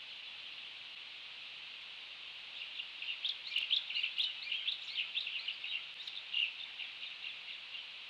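A bird chirping, a quick run of short high notes that starts a couple of seconds in and lasts about five seconds, over a steady hiss.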